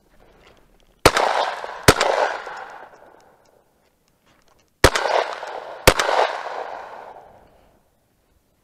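Four shots from an MP-155 semi-automatic shotgun, fired as two quick pairs about three seconds apart. Each shot rings out and echoes, dying away over a second or two.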